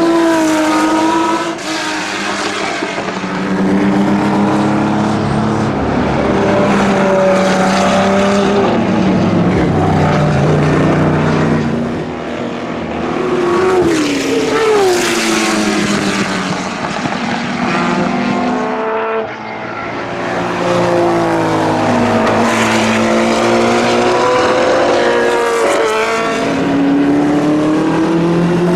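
Porsche 917's air-cooled flat-12 racing engine under hard acceleration, its pitch climbing and then dropping back at each gear change, again and again. The loudness dips briefly a few times and swells back.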